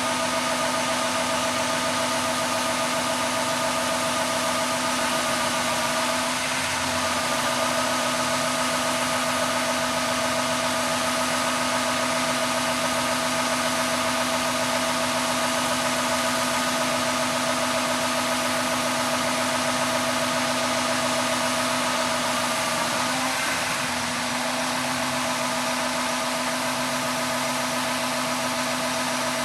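John Deere S680 combine running steadily, its engine and threshing machinery giving a constant drone with a steady whine. It shifts slightly twice.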